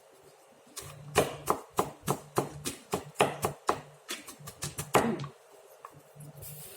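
Kitchen utensil knocking repeatedly: a run of sharp, irregular taps, about three or four a second, starting about a second in and stopping a little after five seconds.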